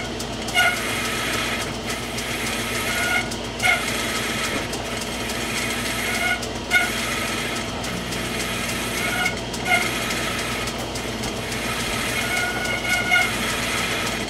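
Metal lathe running with its tool facing the end of a thread protector screwed onto a rifle barrel. A steady machine hum lies under a higher cutting sound that swells and breaks off about every three seconds as the cuts are made.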